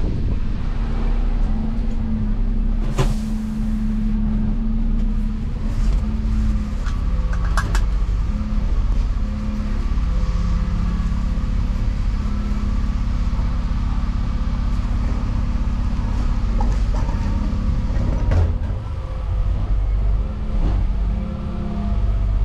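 Cab of a 2018 Dennis Eagle Elite 6 refuse lorry: the diesel engine running steadily at low speed. A short hiss comes about three seconds in and a few clicks near eight seconds.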